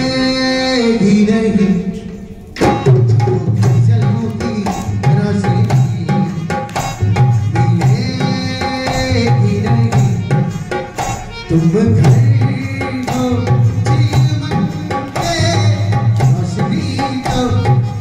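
Rajasthani folk dance music: a held melody opens, and about two and a half seconds in a fast hand-drum rhythm starts and carries on under the tune.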